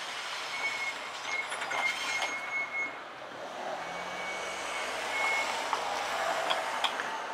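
Cars driving over a level crossing close by. Tyre and engine noise swells and fades, with a few sharp knocks, and a thin high steady tone sounds on and off in the background.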